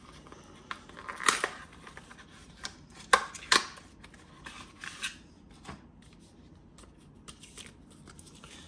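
Phone case packaging being handled and opened by hand: scattered clicks, taps and rustling, loudest about a second in and again around three seconds in, then thinning out to light taps.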